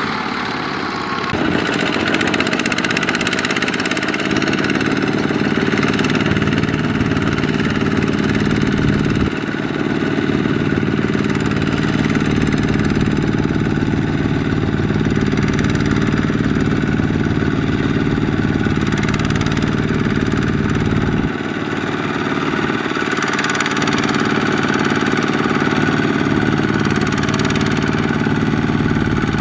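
Kubota RT120 walk-behind tractor's single-cylinder diesel engine running steadily under load, straining to drag a loaded trailer through sticky mud. It gets louder about a second in, then shifts slightly twice.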